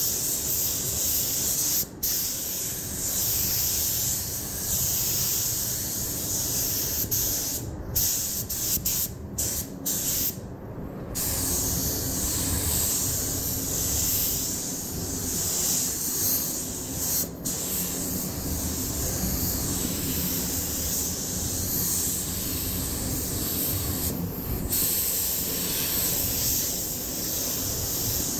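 Compressed-air paint spray gun hissing steadily as it sprays paint onto a motorcycle fuel tank, breaking off briefly several times between passes, over a low rumble.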